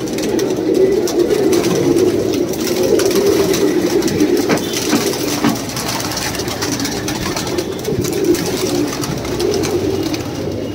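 Many domestic pigeons cooing at once, a steady overlapping chorus of low coos with a few faint clicks.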